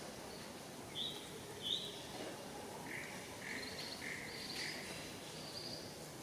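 A series of short, high-pitched animal chirps or squeaks over steady outdoor background noise: two at first, then a quicker run of about four lower ones.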